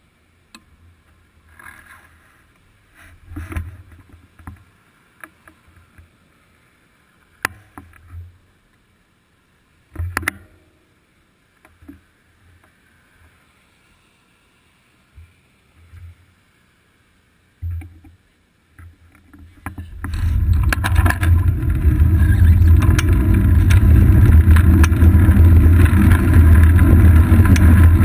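Bike-mounted GoPro Hero 2 jostled on a road bike's seat post: at first scattered knocks and rattles over road bumps, then about twenty seconds in a loud steady rush of wind and tyre rumble as the bike gathers speed.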